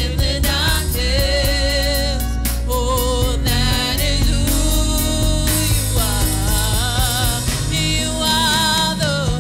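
A woman singing a gospel worship song into a microphone, holding long notes with vibrato over steady instrumental backing with a low bass.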